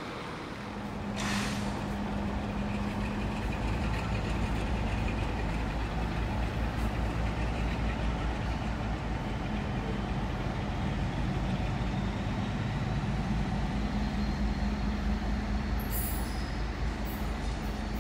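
Class 56 diesel locomotive, with a Class 47 coupled behind, running under power as a light engine pair, a steady deep engine throb that swells about a second in. Short high-pitched hissing noises come near the end.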